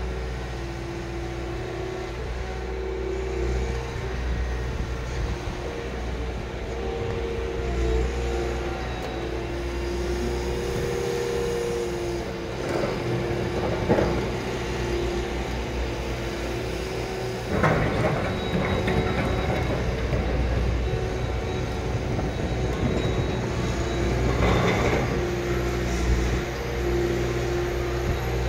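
Liebherr R 936 crawler excavator running steadily while it slews and digs, a constant drone with a hum of two close tones. Three short bursts of scraping and clatter from the bucket working the soil: about halfway through, a few seconds later, and near the end.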